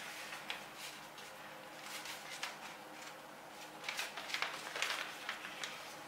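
A sheet of A4 paper being folded and pressed flat by hand: soft rustles and crackles, busiest about four to five seconds in.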